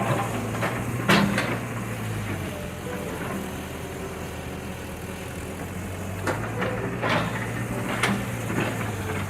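Excavator's diesel engine running steadily at work, with sharp clanks and knocks of debris being moved: one about a second in and several more in the last few seconds.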